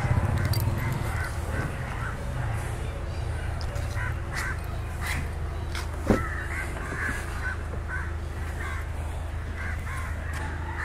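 Crows cawing repeatedly, over a steady low hum, with a single sharp knock about six seconds in.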